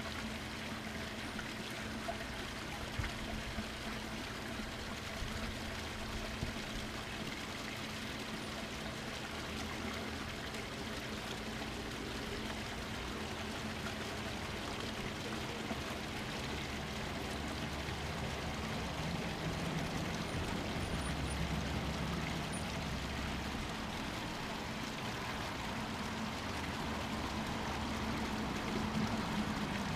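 G-scale model freight train running on garden track: a steady rolling rush of wheels on rail with a low steady hum, swelling a little about two-thirds of the way through and again near the end.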